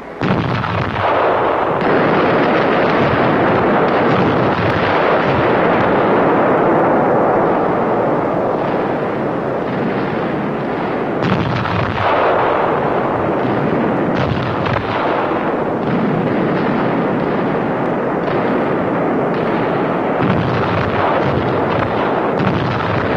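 Heavy naval gunfire and shell explosions in a continuous din of battle, with louder single blasts now and then.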